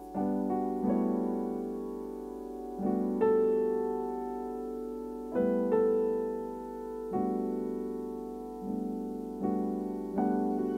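Solo piano played on a digital keyboard piano: slow chords struck every one to two seconds, each left to ring and fade before the next.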